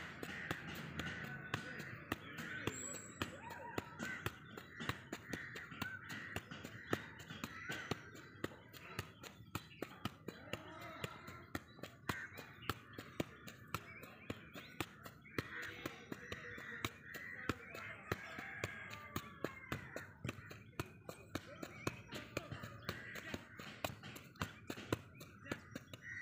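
Soccer ball being juggled with the feet: a steady run of taps as foot meets ball, one touch after another without a drop. Birds call throughout.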